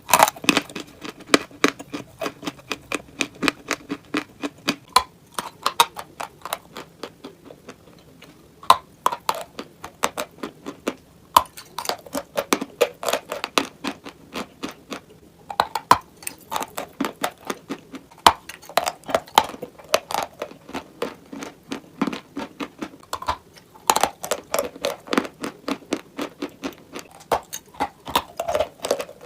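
A person biting and chewing dry, chalk-like pieces close to the microphone: rapid sharp crunches, several a second, with a couple of brief lulls.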